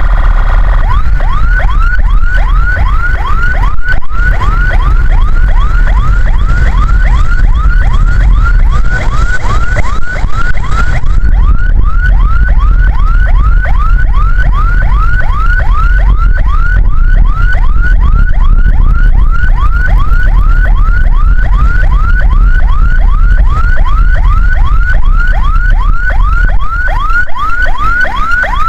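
Ambulance siren sounding in fast yelp mode: quick repeated pitch sweeps, about two to three a second, after a steady held tone for about the first second. A low engine and road rumble runs underneath.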